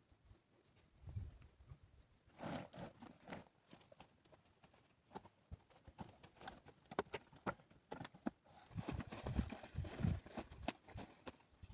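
A string of irregular knocks and taps, sparse at first and thicker from about two seconds in, with a denser, heavier cluster near the end.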